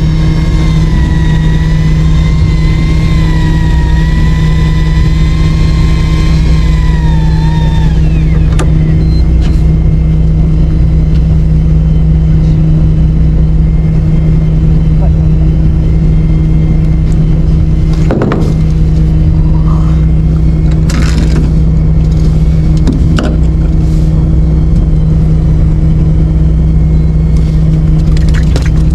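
Engine running steadily with a constant low hum, as of a fishing boat's motor. A wavering high whine runs over it for the first eight seconds, then glides down and stops; a few short sharp noises come later.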